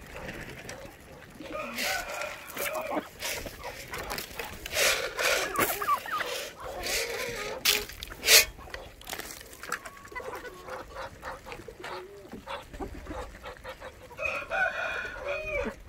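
Chickens clucking as they feed on scattered corn, with a run of sharp clicks and knocks through the middle and a rooster crowing near the end.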